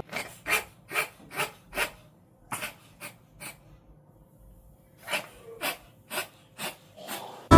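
A cat with bronchitis coughing: three bouts of short hacking coughs, four or five coughs each, about two a second.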